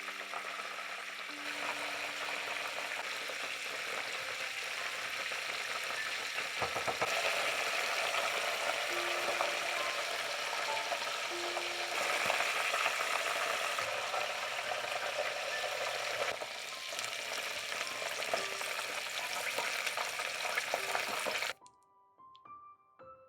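Food sizzling and crackling as it fries in a hot pan. The sizzle cuts off suddenly near the end, leaving a few soft piano notes.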